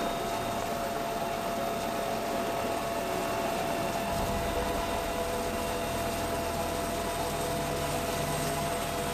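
Bell UH-1Y Venom helicopter running on the ground with its main rotor turning: a steady whine from its twin General Electric T700 turboshaft engines over even rotor and engine noise.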